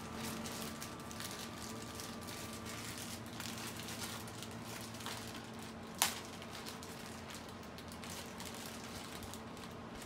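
Microwave oven running with a steady hum while a plastic bag of marshmallows is handled and crinkled open. One sharp click comes about six seconds in.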